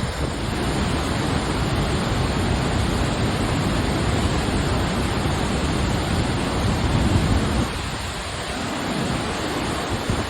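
Steady rush of the Passaic River pouring over the Great Falls, a 77-foot waterfall, with wind buffeting the microphone in the low end that eases off about eight seconds in.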